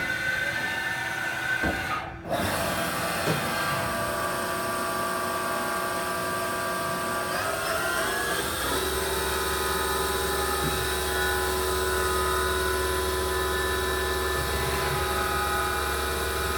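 Haas VF-9 vertical machining center running a program: its spindle and servo-driven axes give a steady mechanical whine made of several tones. Around halfway through the pitch rises, then settles into a steady hum over a low drone. The axis moves and ball screws sound smooth and healthy.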